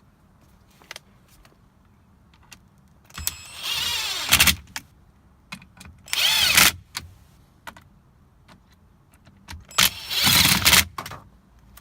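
A power driver runs in three short bursts of about a second each, with a whine that wavers, driving the steering-column housing bolts in.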